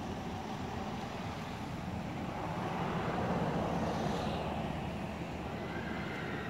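A motor vehicle passing, over a steady background rumble: the noise swells about halfway through and fades again.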